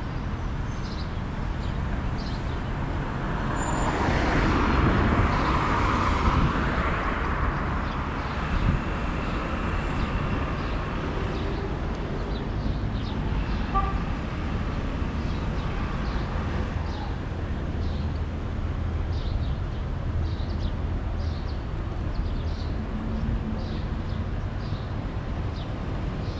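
City street traffic: a steady low rumble of engines and tyres, with one vehicle passing close about four to seven seconds in.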